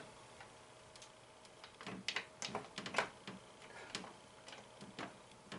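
Light, irregular metal clicks and taps, starting about two seconds in, as the parts of a 1979 Bally Star Trek pinball machine's flipper assembly are worked loose by hand.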